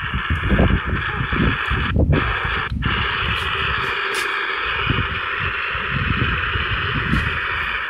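Grundig G2 Reporter shortwave radio tuned to 10.870 MHz, its speaker giving a steady hiss of band static with no station audible; the hiss drops out briefly twice about two seconds in. Wind rumbles on the microphone underneath.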